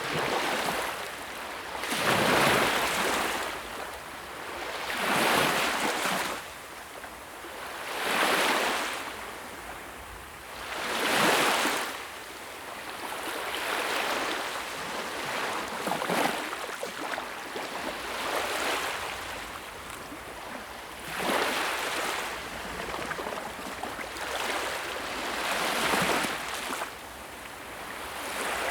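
Sea waves breaking and washing on a shore, each swell of surf rising and falling off every few seconds, with a steadier, softer wash in the middle stretch.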